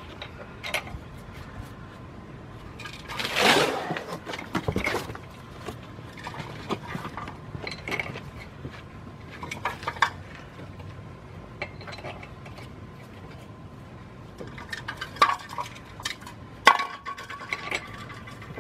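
Lug nuts clinking and scraping against the wheel studs and rim as they are threaded on by hand, in scattered light metal clicks. A louder brief rush of noise comes about three and a half seconds in, and one clink near the end rings on for about a second.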